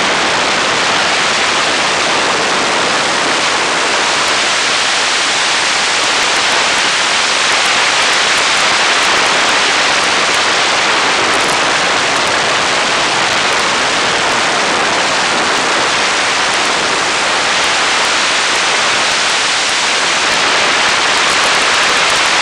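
Loud, steady rush of wind and engine noise in the open cockpit of a 1942 Boeing Stearman biplane in flight, the airflow over the microphone drowning out any distinct engine note.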